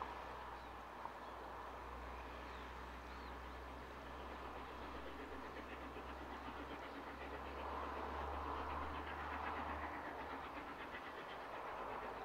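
Steam locomotive Royal Scot No. 46100 working a train at a distance: a steady rumble with faint, fast exhaust beats that grow a little louder in the second half.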